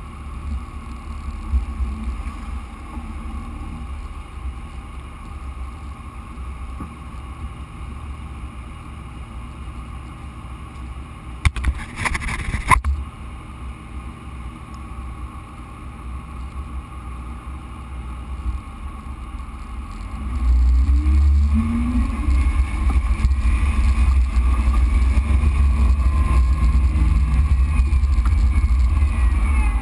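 Jeep Wrangler JK driving a dirt trail: a steady low engine and drivetrain rumble, with a brief loud burst of noise about twelve seconds in. From about twenty seconds in the engine gets louder and revs up as the Jeep climbs a dirt rise.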